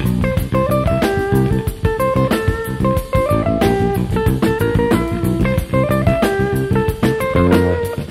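Jazz-funk instrumental played on electric guitar, electric bass and drum kit: a melody steps up and down in short notes over a running bass line and frequent drum hits.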